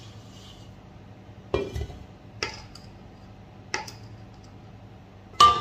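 Stainless steel bowls and a spatula clanking as meringue is scraped out of a stand-mixer bowl and the bowl is set down on a steel worktable: about five sharp metallic knocks, the loudest near the end with a brief ring.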